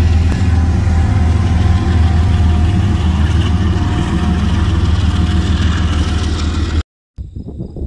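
Diesel locomotive engine rumbling steadily, loud and low. It cuts off suddenly near the end, and after a brief silence a much fainter outdoor background begins.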